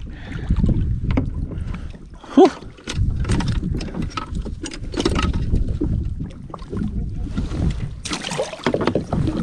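Wind rumbling on the microphone of an open-water kayak, with scattered knocks and clicks from handling gear on board.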